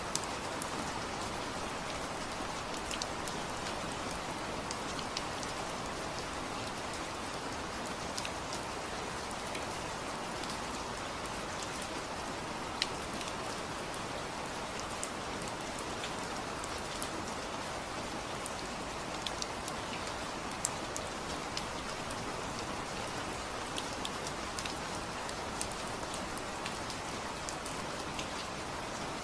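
Steady rain falling, an even hiss with scattered sharp drip ticks of individual drops striking a surface.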